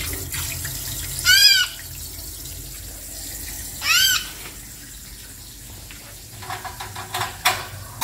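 A small wild-caught songbird, wet from a bath, giving two short calls that each rise and then fall, about a second and a half and four seconds in, over faint water running from a sink tap. Light clicks near the end.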